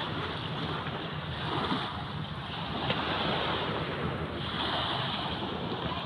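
Small waves from a calm sea washing onto the beach, swelling and falling back every two to three seconds, with wind rumbling on the microphone.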